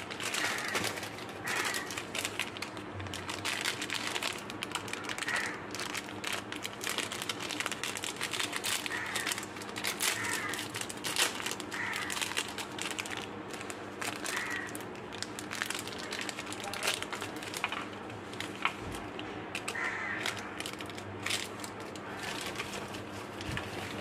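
Plastic candy wrappers crinkling and crackling as they are twisted and pulled open by hand, in many small irregular crackles.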